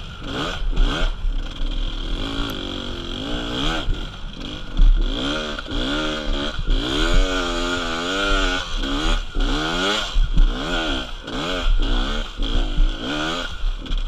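Beta dirt bike engine revving up and down over and over as it is ridden through sandy whoops, the throttle opening and closing every second or two. Wind buffets the helmet-mounted microphone throughout.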